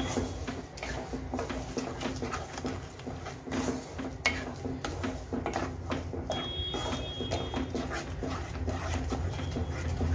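Wooden spatula stirring and scraping a thick, wet mixture of ground ginger and melting sugar around a nonstick pan, in quick irregular strokes, over a steady low hum.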